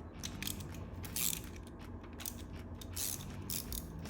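Socket ratchet clicking in short, irregular bursts as small 10 mm bolts are backed out of the cylinder head of a GM 5.3-litre V8.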